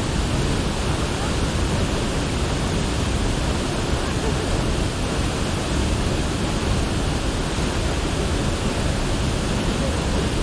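Rushing water of Rio Celeste, falling or running fast: a steady, dense rush of noise.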